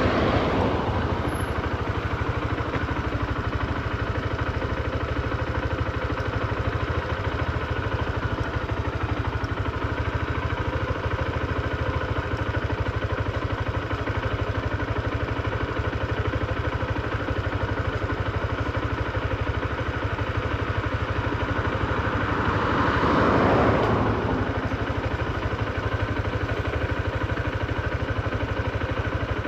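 Honda CB125F's small air-cooled single-cylinder four-stroke engine idling steadily at an even speed. About two-thirds of the way through, a louder swell of traffic noise rises and fades.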